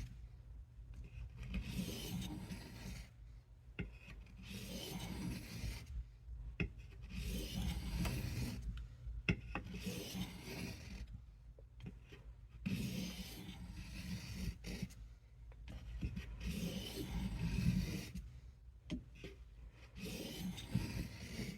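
Blade of a Case USMC knife being stroked across a water-wetted hard sharpening stone, a long rasping scrape with each pass. There are about eight passes, one every two to three seconds, with short pauses between them.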